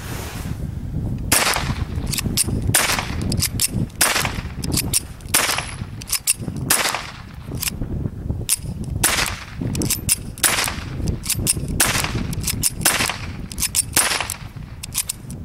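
Ruger SR22 .22 LR pistol firing Remington low-noise rimfire rounds in a steady string, a sharp crack about every second and a half. Between shots come the metallic clicks of the slide being racked by hand, because the low-powered ammunition will not cycle the action.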